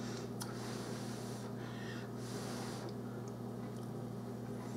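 A person blowing on a hot bite of fried salmon patty to cool it: two breathy puffs, each about a second long, in the first three seconds, over a steady low hum.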